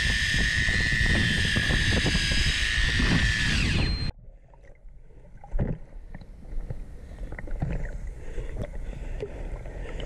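A motor running at high speed with a steady high whine and wind noise, dropping slightly in pitch just before it cuts off abruptly about four seconds in. After that only faint scattered knocks and clicks remain.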